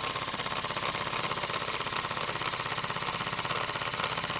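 1929 Meccano toy steam engine running in steam: a rapid, even chuffing of about eight beats a second over a steady high hiss.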